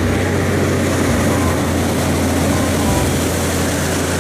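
Heavy diesel engine of a Western Star tanker truck running steadily as the truck drives past, a continuous low engine hum under road noise.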